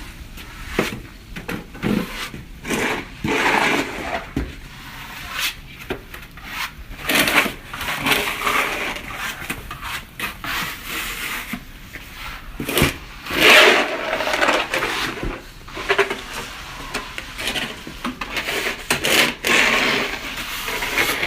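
Snow being scraped and crunched in irregular strokes, with a louder crunch about thirteen seconds in.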